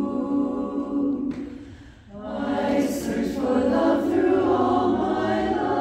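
Women's chorus singing a cappella. A held chord fades out about two seconds in, and after a short break the chorus comes in on the next phrase.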